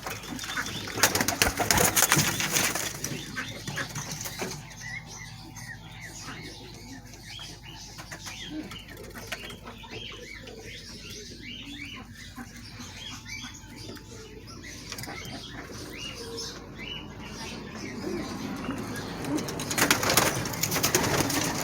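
Pigeons flapping their wings, with a loud flurry in the first few seconds and another near the end. In between come many short, high chirps from birds.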